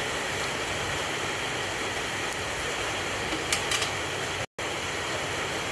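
Hot cooking oil sizzling steadily in a wok after the fried potato patties have been lifted out, with a few light clicks of the wire spider strainer about three and a half seconds in. The sound cuts out for an instant about four and a half seconds in.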